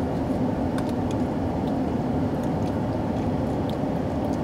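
Steady low hum of a car running while parked, heard from inside the cabin, with a few faint clicks.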